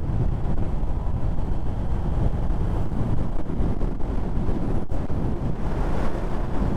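Wind rush on the microphone and road noise from a Honda Hornet 600 motorcycle riding at speed, a steady rushing that sits mostly low, with a brief dropout about five seconds in where the footage is cut.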